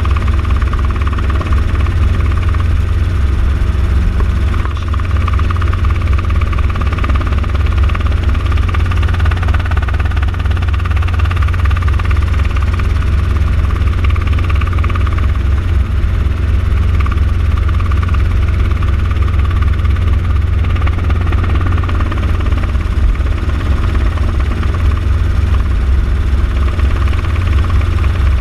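Light helicopter in cruise flight, heard from inside the cabin: a loud, steady drone of engine and rotors, heaviest in the low end, unchanging throughout.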